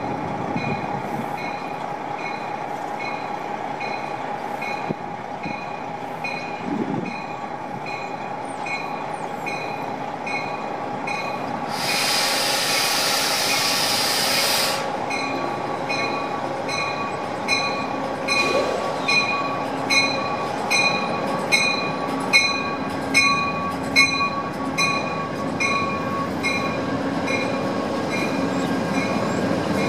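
Amtrak passenger train rolling slowly alongside a station platform, its bell ringing steadily at a bit more than one strike a second, growing louder as the train draws near, over a steady whine. Around the middle a hiss of air lasts about three seconds.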